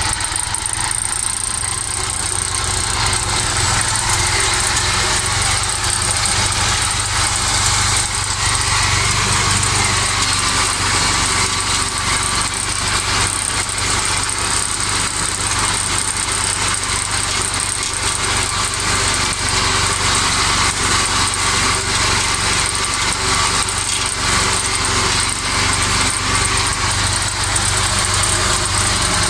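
IMT 539 tractor's three-cylinder diesel engine running steadily under load while its Kuhn mower cuts tall grass, with a hiss of cutting and thrown clippings over the engine drone.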